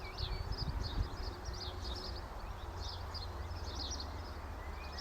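Small birds chirping and calling in the background, many short scattered high notes, over a steady low rumble.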